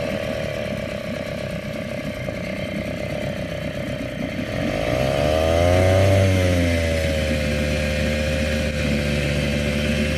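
2003 Mercury 3.3M two-stroke outboard motor running, freshly restarted after being freed from a seized piston. About halfway through it revs up briefly and drops back, then settles into a steady idle.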